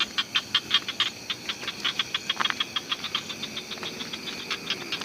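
A night insect calling: a rapid, even train of dry ticks, about six a second, growing weaker in the second half.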